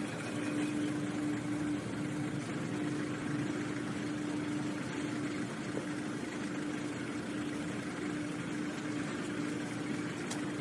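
Steady engine drone of vehicles idling, with a constant low hum throughout.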